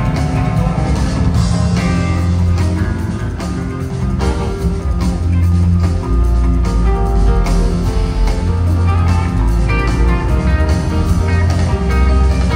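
Live rock band playing loudly: electric guitar over bass notes, drum kit and keyboards, heard from within the audience.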